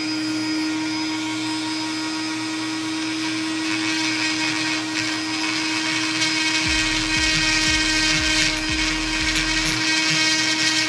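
Dremel rotary tool with a carbide burr grinding the aluminium combustion chamber of a GY6 scooter cylinder head, smoothing away its sharp edges. A steady high motor whine runs under a rasping cutting noise that grows louder about halfway through.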